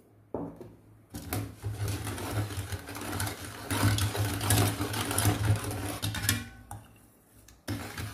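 Steel ladle stirring sugar into thick colostrum milk in a stainless steel bowl, scraping and clicking against the metal in a busy, rhythmic run while the sugar dissolves. The stirring pauses for about a second shortly before the end, then starts again.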